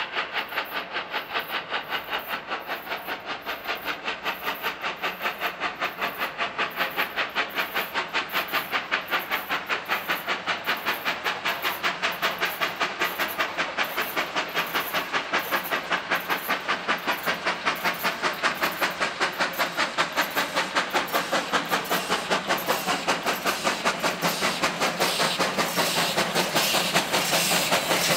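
South African Railways Class GMAM Garratt steam locomotive working hard. Its exhaust beats come in a rapid, even chuffing with a steady hiss, growing louder as the train approaches.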